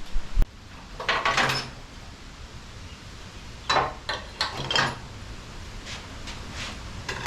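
Scattered short knocks and clatter of hand tools and metal parts being handled while a motorcycle's front fork bottom bolts are taken out, with a sharp click about half a second in.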